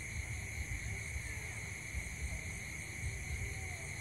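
Night insect chorus: a steady high trilling, with a fainter pulsing note higher up, over a low uneven rumble.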